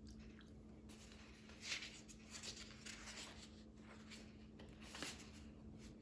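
Quiet room tone with a faint steady hum and a few brief soft rustles of a hardcover picture book being handled, the loudest about two seconds in and again near the end.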